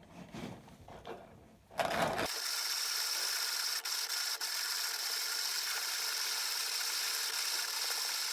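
1950s Armin Trösser 545 manual conical burr coffee grinder grinding coffee beans on its finest setting: a steady grinding rasp that starts about two seconds in, after a few faint knocks.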